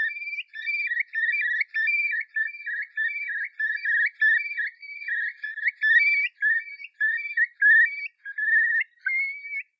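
High, whistle-like tune of short, choppy notes stepping up and down in pitch, cutting off suddenly at the end.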